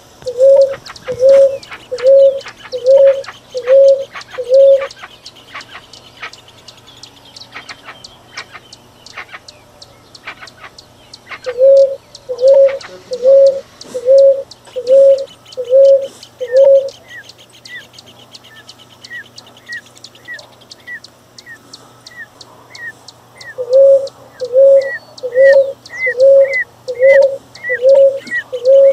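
Birds calling: one bird repeats a loud, low, hollow note about one and a half times a second, in three runs of seven or eight notes. Between the runs come quick high chirps, and from about halfway on a short high downward note repeats.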